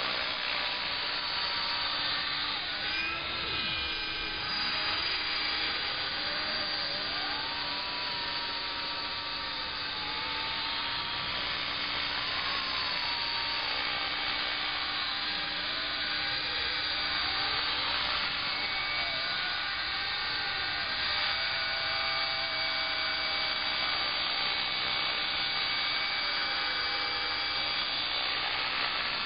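Battery-powered Align T-Rex 500 radio-controlled helicopter in flight: a steady motor-and-rotor whine whose pitch slides up and down at times as it manoeuvres.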